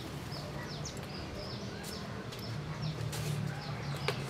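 Small birds chirping repeatedly, short falling chirps a few times a second, over a low steady hum.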